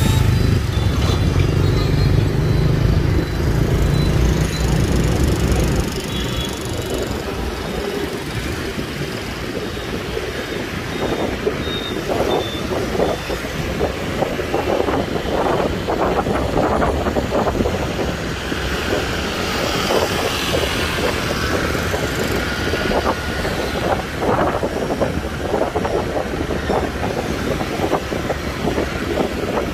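Night-time street traffic heard from a moving motorbike: the engines of motorbikes and cars and the hum of tyres on the road, with a heavier low rumble for the first six seconds.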